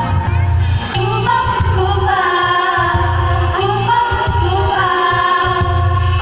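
A group of singers performing a shalawat, an Islamic devotional song, over an instrumental backing track with a pulsing bass line.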